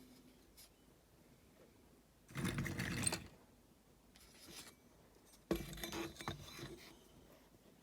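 Two short bursts of metal scraping and grinding as a diecast toy car is worked apart to open its base, the second one longer.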